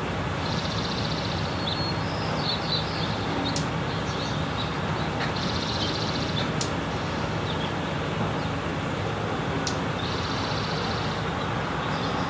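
A small bird gives a short high trill three times, about every four to five seconds, with a few sharp high chips between, over a steady outdoor background noise.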